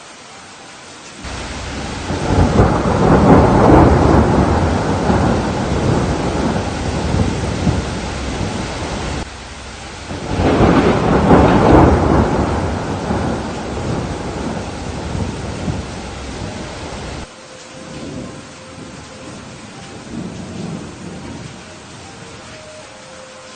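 Thunderstorm: steady heavy rain with two long rolls of thunder. Each starts suddenly and fades over several seconds, the second cut off abruptly, and lighter rumbles follow near the end.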